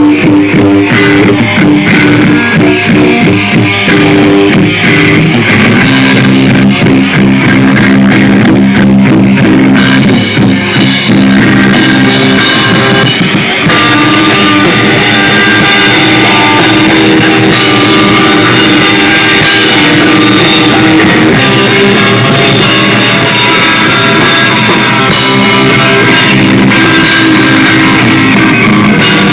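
A rock band playing live, loud: electric guitars over a drum kit. The cymbals fill in more densely about halfway through.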